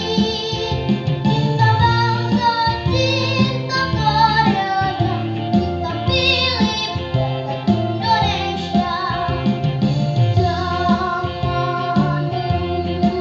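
A young girl singing a patriotic Indonesian march in Indonesian, with solo grand piano accompaniment in the key of F.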